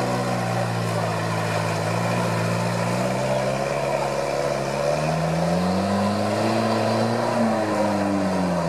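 UAZ off-roader's engine pulling through deep mud and water, holding a steady note, then revving higher from about five seconds in and easing off near the end.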